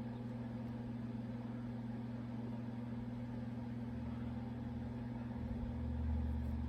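A steady low hum, with a deeper rumble swelling about four seconds in and easing off near the end.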